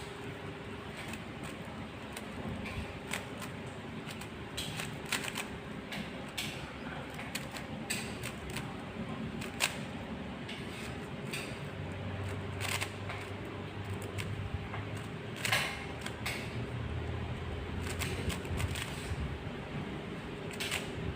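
GAN speed cube being turned fast in a speedsolve: a quick, irregular clatter of plastic layer clicks, over a steady low hum.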